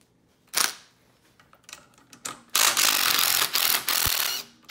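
DeWalt cordless impact tool hammering on a bolt in a jet ski engine's cover, running for about two seconds with a brief pause midway. A single knock comes about half a second in, before the tool starts.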